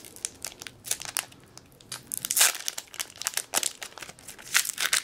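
A Magic: The Gathering booster pack's foil wrapper crinkling as it is torn open and pulled apart by hand, in irregular rustles that are loudest about two and a half seconds in and again near the end.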